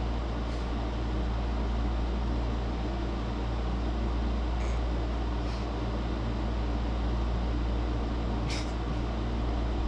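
Steady low mechanical hum of room background noise, unchanging throughout, with a few faint clicks.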